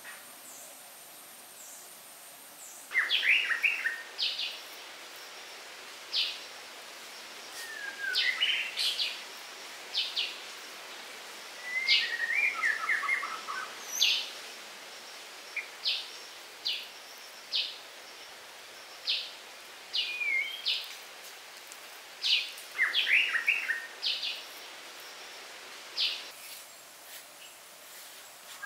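Songbirds chirping: short sharp calls and quick trilled, sliding phrases come every second or two, over a faint steady outdoor hiss. A high insect buzz fades out as the birds start, a few seconds in.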